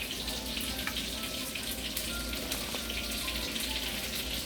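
Tonkatsu (breaded pork cutlets) frying in hot oil: a steady crackling sizzle.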